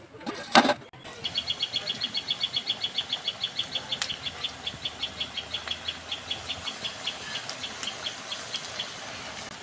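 A loud metal clank about half a second in. Then a bird calls a long run of quick, high, even notes, about six a second, that slowly fade, over the steady hiss of fritters frying in hot oil.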